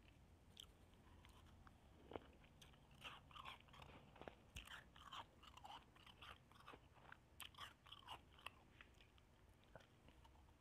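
Shaved ice being crunched and chewed in the mouth, quietly. A run of quick crunches starts about two seconds in and thins out near the end.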